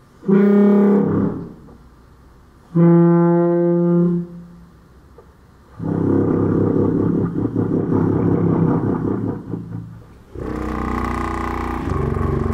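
Sousaphone played through a 3D-printed foghorn mouthpiece, its rubber membrane flapping open and shut over the cup: two short, clear, horn-like blasts, then a longer, rougher, raspier blast, and after a break a steady sustained note.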